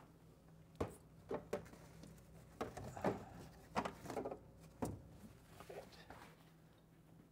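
About ten light knocks and clatters at irregular intervals, like objects being handled and set down.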